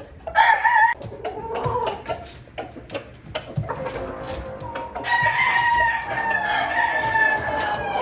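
Gamefowl roosters crowing: a short crow in the first second, another briefly after, then a long drawn-out crow from about five seconds in, with clucking between.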